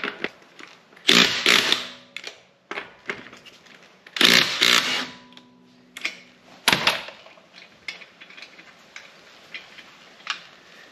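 Impact wrench running in three short bursts, spinning the lug nuts off the wheel.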